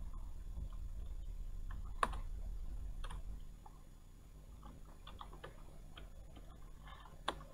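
Computer keyboard keystrokes: a sharp key click about two seconds in and another near the end, with a few fainter taps between, over a low steady hum.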